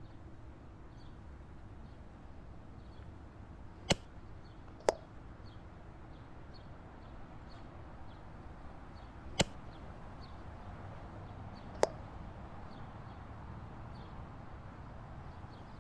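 Air rifle shots at a squirrel: four sharp cracks, the first two about a second apart and the others some seconds later, over a quiet outdoor background.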